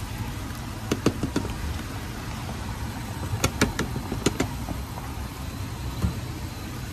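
A plastic tub of tomato purée knocked against the rim of a steel frying pan to empty it, in a few sharp taps about a second in and a quicker run of taps from about three and a half to four and a half seconds. A steady low rumble runs underneath.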